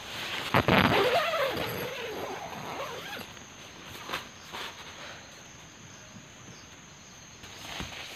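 Nylon tent fabric rustling and swishing as someone moves at the tent doorway and crawls in, loudest from about half a second to two seconds in, with a few light knocks after. A steady high insect drone runs behind it.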